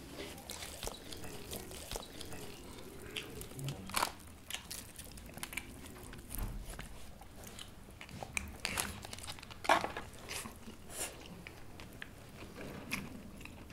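People eating cooked sheep's head by hand: chewing and biting, with irregular small crunches and clicks as meat is pulled off the skull bones, two louder ones about four seconds in and near ten seconds.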